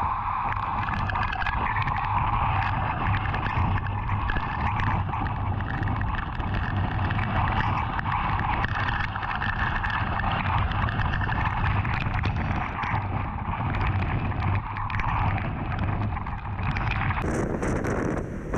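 Hurricane-force wind blowing across a ground-based storm probe's microphone: a constant rushing with low buffeting. About a second before the end the sound changes abruptly to a brighter hiss.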